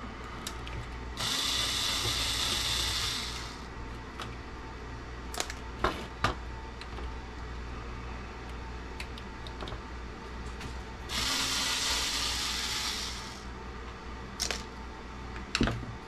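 Small cordless electric screwdriver whirring twice, for about two and a half seconds each time, backing screws out of a CB radio's sheet-metal chassis. A few light clicks and taps of screws and parts come in between.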